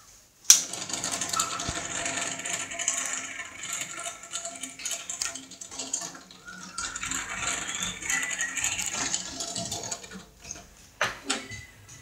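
Mini ceiling fan starting up, with a sharp click about half a second in and then a busy mechanical rattling and clattering for several seconds that eases off near the end, with a couple more clicks. The fan is prone to not starting on its own and is given a spin by hand to get it going.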